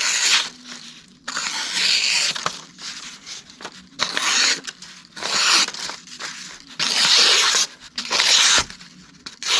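Sharpened knife blade (Cold Steel 4 Max Scout) slicing through paper in about five separate cuts, each a short papery rasp: a sharpness test after sharpening and stropping, the edge cutting cleanly.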